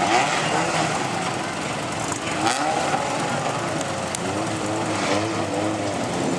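Racing hatchback engines on an autocross track, revving up and dropping back over and over as the cars race past. A single short sharp crack comes about two and a half seconds in.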